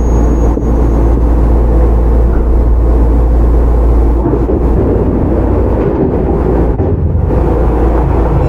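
Running noise of a Shizuoka Railway 1000 series resistance-control electric train, heard from inside the car: a steady, loud rumble of the wheels on the rails and the car's running gear.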